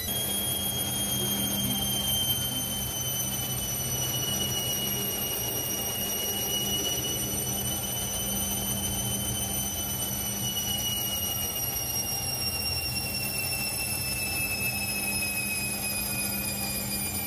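Candy CS1292D3 front-loading washing machine in its final spin: a steady motor hum under a high whine that steps up in pitch right at the start, then slowly falls.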